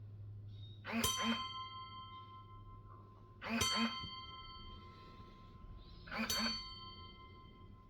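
Bell on a tombstone rung three times, about two and a half seconds apart, each stroke ringing on with several clear overtones that slowly fade.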